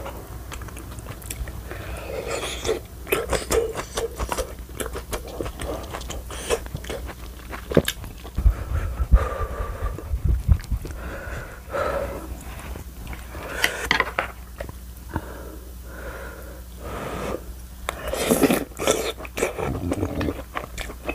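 Close-miked chewing of chewy rice cakes in a creamy, cheesy sauce: wet smacking with many short sharp mouth clicks, and a few dull low thumps about nine to ten seconds in.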